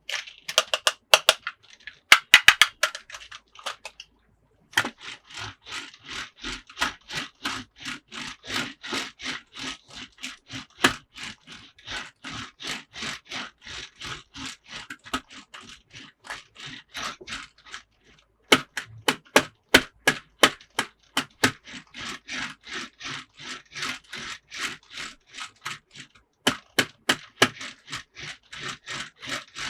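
Rapid plastic clicking and tapping, about three clicks a second, as toy parts and packaging are handled, pausing briefly twice.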